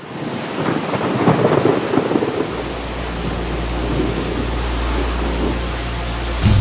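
Thunder rumbling over steady rain, with a steady deep low rumble coming in about two and a half seconds in.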